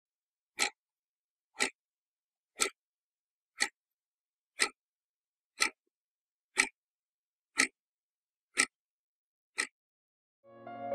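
Quartz wall clock ticking, one sharp tick a second, ten ticks in all. Music begins near the end.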